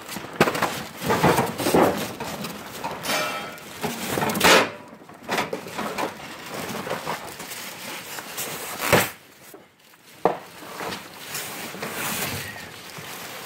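A cardboard box and its styrofoam packing being handled as a heater is unpacked: irregular rustling, scraping and a few knocks.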